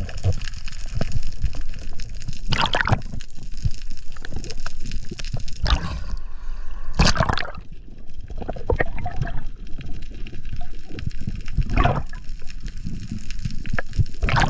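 Water gurgling and sloshing around an underwater camera as the diver moves, with about five short, loud rushes of water or bubbles.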